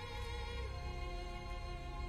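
Symphony orchestra playing sustained held string chords, which move to new notes a little over half a second in.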